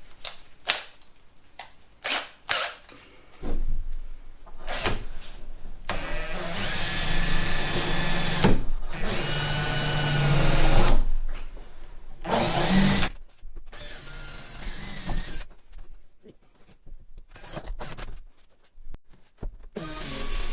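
Electric drill boring a small pilot hole through a plywood dinghy bulkhead. It runs in short on-off bursts at first, then spins steadily for several seconds with a motor whine before stopping, followed by quieter handling noises.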